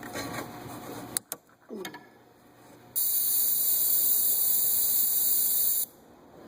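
A few light clicks and handling noises, then a steady high hiss of about three seconds from a spray or air nozzle aimed at a stuck fuel-line fitting on the van's fuel tank, which cuts off sharply.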